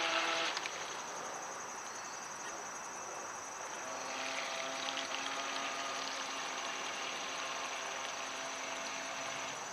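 Electric RC speedboat's motor whining on the water. The whine drops away about half a second in and comes back fainter but steady from about four seconds in as the boat runs across the pond.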